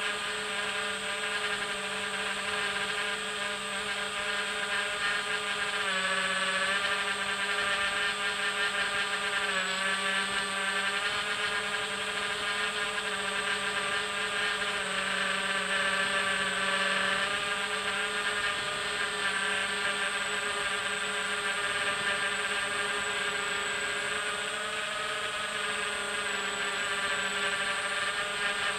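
Electric motors and propellers of a small FPV drone, heard through its own onboard camera: a steady whine whose pitch shifts slightly a few times.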